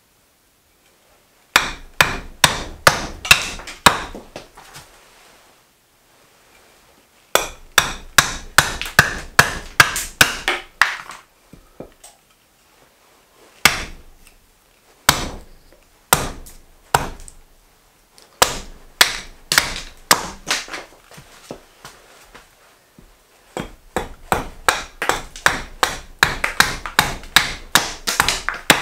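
Julia Kalthoff carving axe hewing a green maple spoon blank on a wooden chopping block: quick runs of sharp chopping strokes, about three or four a second, broken by short pauses, with a few single strokes in the middle.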